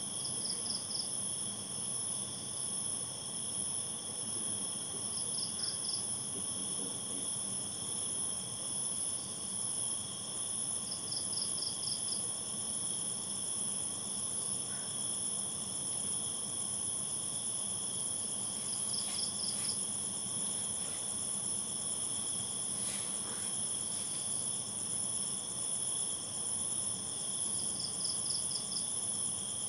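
Night insect chorus: crickets keep up a steady, high-pitched drone, and a short chirp of a few quick pulses repeats five times, several seconds apart.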